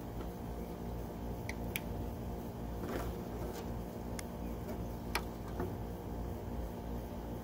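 A steady mechanical hum runs underneath a few sharp, light clicks scattered through. The clicks come from fingers working the small metal dethermalizer fitting on a model airplane's tail.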